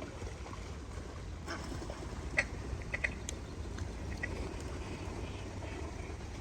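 A few short, scattered duck quacks over a low steady background rumble, the loudest about two and a half seconds in.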